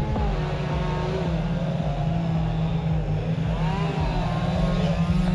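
Two-stroke chainsaw running steadily, with a fainter pitch rising and falling above it.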